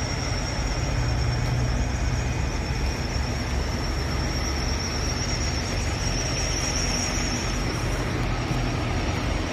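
Steady low engine rumble with an even hiss and a thin, steady high whine over it.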